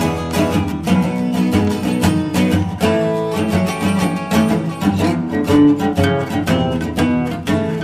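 Background music led by guitar, plucked and strummed in a steady rhythm.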